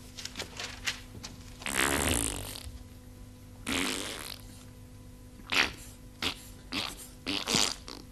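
Red plastic squeeze ketchup bottle being squeezed, sputtering out air and sauce: a long spurt about two seconds in, another about two seconds later, then a string of short spurts near the end.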